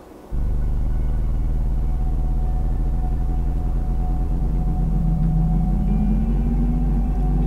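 Deep, steady drone of held low tones that starts abruptly just after the start, with a thin higher tone held above it and further tones swelling in near the end: a dark ambient soundtrack drone.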